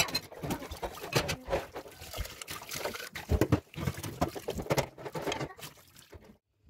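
Tap water running and splashing into a stainless steel sink as dishes are rinsed, with repeated clinks and knocks of a plate, cutlery and a metal pot against the sink. It cuts off suddenly near the end.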